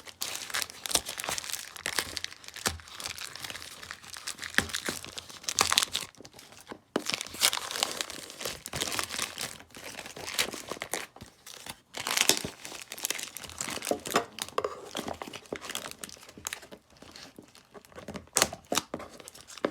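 Parcel packaging being torn open and crumpled by hand: continuous crinkling and tearing, with two brief pauses.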